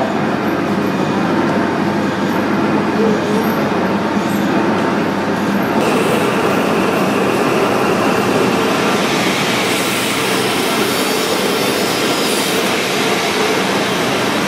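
Steady mechanical running noise from machinery, growing hissier about six seconds in.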